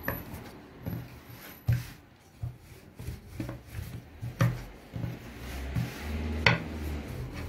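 Long thin wooden rolling pin (oklava) rolling back and forth over yeast dough on a floured counter, making a low rubbing rumble. Three sharp knocks break it up.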